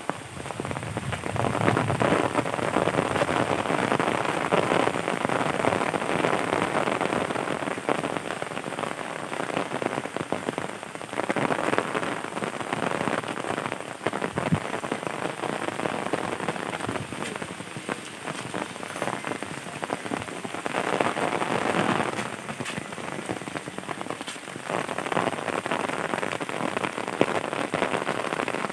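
Heavy rain pouring down, a dense patter of drops on the ground and surfaces that surges louder and eases several times.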